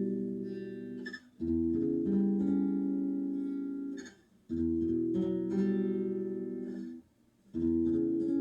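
Guitar music: slow strummed chords, each struck sharply and left to ring and fade for a couple of seconds before the next, three new chords in all.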